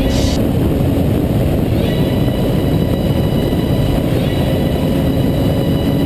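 Sport motorcycle engine running at steady speed on a circuit, its note rising slowly. Heavy wind rush on the onboard microphone.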